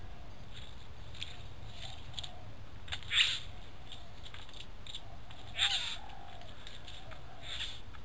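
Bird calls: two short, harsh calls about three and five and a half seconds in, with a few fainter chirps between. A steady low hum runs underneath.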